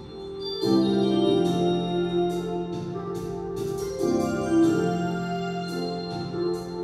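Music with sustained organ-like keyboard chords over a steady beat of crisp ticks, swelling to full level less than a second in.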